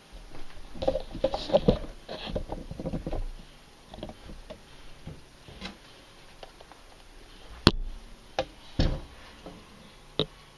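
Close handling noise: rustling and soft knocks over the first three seconds, then four sharp clicks spread through the second half.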